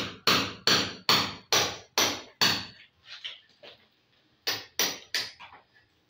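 Hand hammer blows, about two a second: seven sharp strikes in a steady run, then a short pause with a couple of light taps. Three more strikes follow near the end, with a few lighter taps after them.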